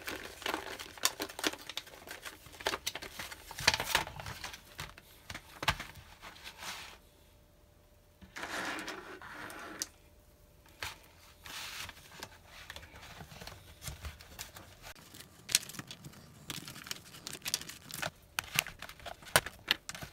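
Plastic marker barrels clicking and clacking against each other as they are pressed into a clear plastic blister tray, with the thin plastic tray crinkling; a short pause about seven seconds in.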